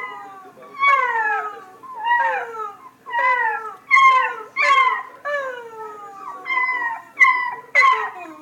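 A cat meowing over and over, about ten loud calls in quick succession, each one sliding down in pitch, like a protesting yowl.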